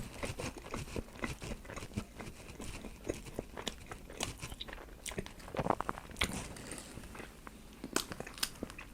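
Close-up chewing of a sandwich: irregular wet mouth clicks and smacks, with one brief pitched sound a little past the middle.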